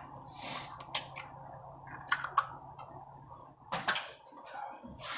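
Eggs being cracked against a bowl: a few sharp taps and clicks, scattered over several seconds.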